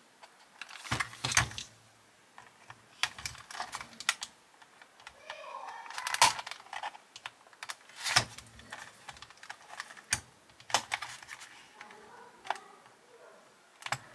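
Irregular clicks and knocks of a die-cast Bburago model car being handled and turned over on a silicone work mat, its plastic and metal parts tapping and rattling. The loudest knocks come about a second in and again around six and eight seconds.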